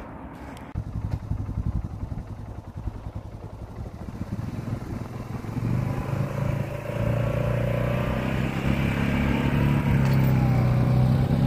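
ATV engine running and pulling away, towing a 10-foot log slung under a wheeled log arch uphill. The engine note grows steadily louder as the quad drives up and past.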